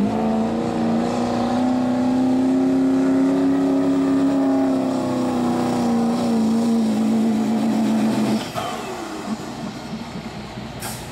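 Ford Super Duty diesel pickup's engine running hard at high revs under full load as it pulls the sled, its note holding steady with a slight rise and fall. About eight seconds in the engine note drops away suddenly as the pull ends, followed by a single sharp click near the end.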